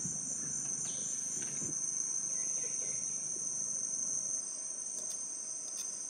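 Steady high-pitched drone of a rainforest insect chorus, in two high bands, with a slight change about four seconds in and a few faint clicks near the end.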